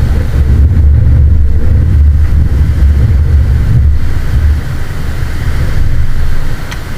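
Wind buffeting the microphone: a loud, gusting low rumble that eases a little after about four and a half seconds.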